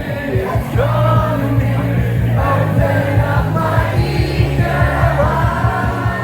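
Pop dance music with a sung vocal over a steady beat, played loud through a mobile disco sound system.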